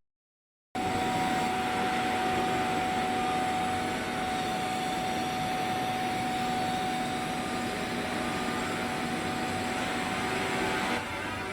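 TIG welding arc running steadily: an even hiss with a steady whine over it, starting about a second in and dropping away near the end.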